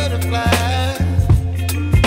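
Background music: a song with a sung melody over a steady bass line and a drum beat.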